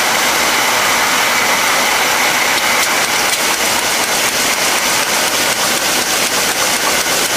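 Gernep roll-fed labelling machine running in single-bottle mode: a steady, loud mechanical whir and hiss with rapid, regular faint ticking as PET bottles pass through the label carousel.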